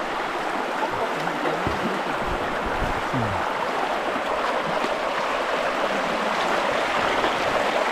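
Steady rushing of flowing water, like a stream, holding an even level throughout.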